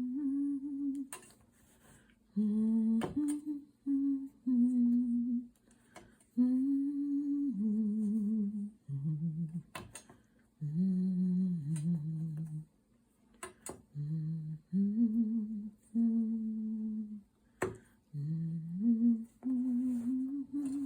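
A woman humming a tune to herself in short phrases of held notes that step up and down, with a dozen or so sharp clicks scattered between the notes.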